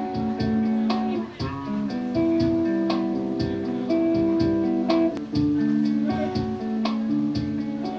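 Hollow-body guitar playing held chords in a steady rhythm, each stroke giving a sharp attack.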